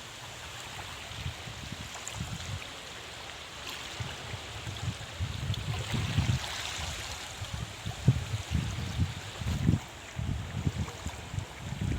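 Steady rush of sea water with irregular gusts of wind buffeting the microphone, the gusts stronger in the second half.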